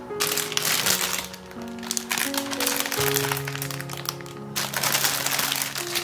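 Solo piano music playing, with the crinkling of a plastic bag of salad leaves being handled: once in the first couple of seconds and again from about halfway through.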